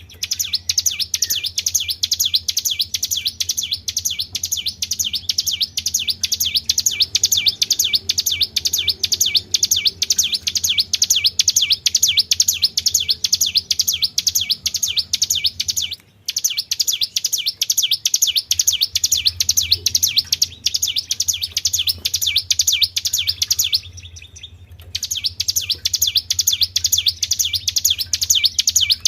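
Songbird giving a fast, high-pitched 'tribel' trill: short chirps repeated evenly several times a second. It breaks off briefly about two-thirds of the way through, and again for about a second near the end.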